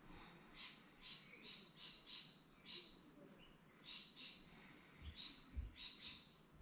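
Faint bird calling: a string of short, scratchy calls, about two a second with a pause in the middle. A soft low bump comes about five and a half seconds in.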